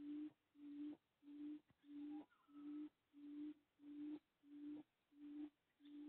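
A low, even hooting call repeated steadily, about one and a half hoots a second, each hoot held for under half a second, with faint bird chirps between them.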